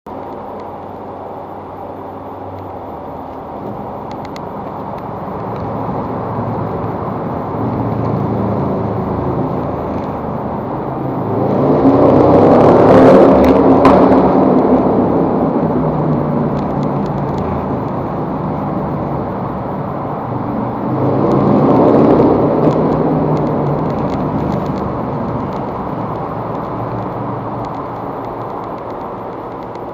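Road vehicles running through a tunnel, a steady echoing drone that swells twice, loudest about 13 seconds in and again about 22 seconds in, as vehicles go past.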